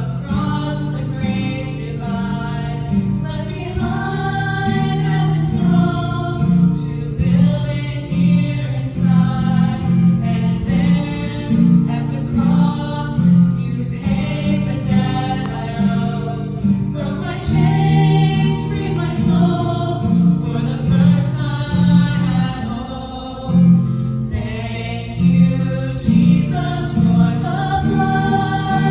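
A women's vocal group singing a gospel song together, several voices in harmony through microphones.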